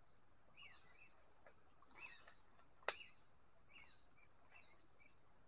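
Faint, high chirping calls, each falling in pitch, repeated several times. A single sharp click comes a little past halfway.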